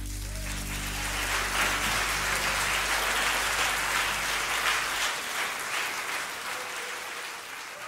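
A small group applauding, the clapping fading toward the end, while the last low note of the preceding guitar music dies away in the first few seconds.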